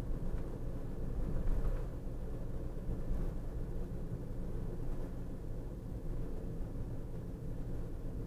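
Car interior driving noise: engine hum and tyre rumble on the road, steady and low-pitched, with a brief swell about a second and a half in.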